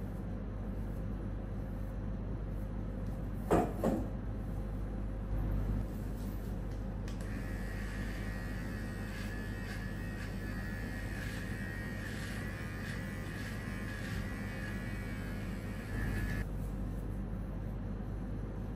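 Electric hair clipper switched on about seven seconds in, buzzing steadily for about nine seconds, then switched off, over a steady low hum. Two short, sharp sounds come a few seconds before it starts.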